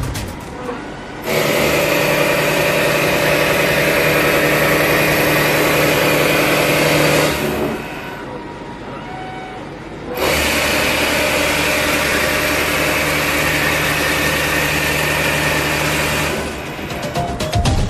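Seco Double Octomill high-feed face mill cutting metal in two steady passes of about six seconds each, a loud, even machining hum with a hiss, separated by a quieter gap.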